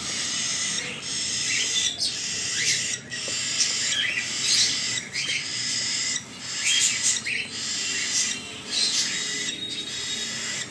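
Lutino cockatiel chick making raspy food-begging calls while being hand-fed, a steady run of short rising rasps about one or two a second.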